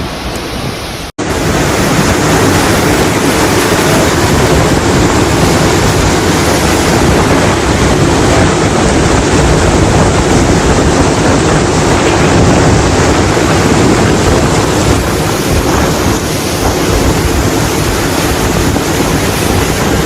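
Hurricane-force wind and rough water making a loud, steady roar, with wind buffeting the microphone. The sound cuts out for an instant about a second in.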